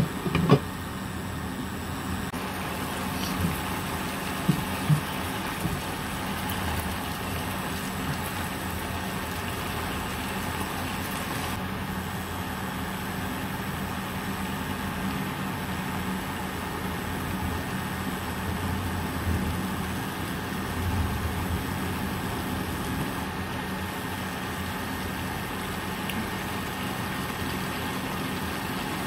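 Induction cooker humming steadily under a frying pan of beef simmering in broth. A glass lid clinks onto the pan about half a second in, and a few light knocks follow a few seconds later.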